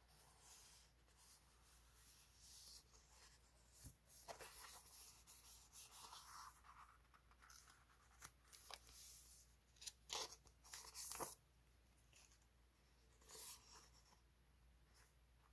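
Sheets of printed paper rustling and crinkling as hands lift, flip and shuffle through them, in faint short bursts with louder crinkles about ten and eleven seconds in.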